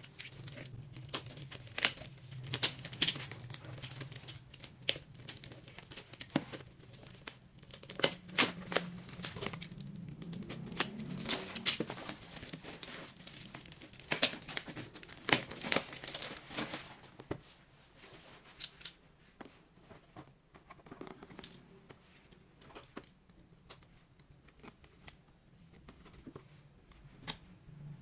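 Packaging being opened and handled by hand: plastic and paper crinkling and tearing, with scattered sharp clicks and knocks. Busy for the first half, then sparser and quieter.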